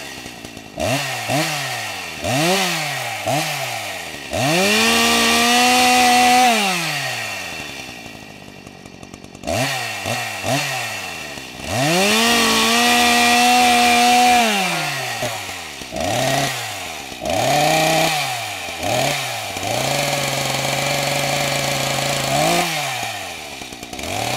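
Two-stroke chainsaw in a tree climber's hands, revved again and again: short throttle blips and two longer runs held at full throttle for about two seconds each. Near the end it settles to a steady idle, with one more blip.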